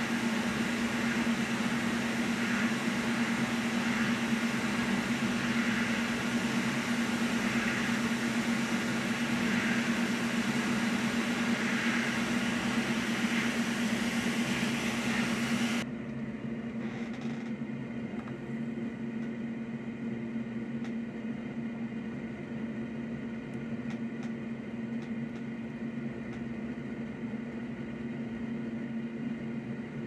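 Steady whirring hum with airflow hiss from fan-driven soldering bench equipment. About halfway through it cuts suddenly to a quieter hum that carries several steady tones.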